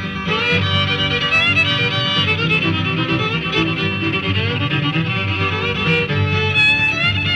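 Instrumental fiddle break in a 1940s bluegrass string-band recording, a fast bowed melody over a steady rhythm accompaniment.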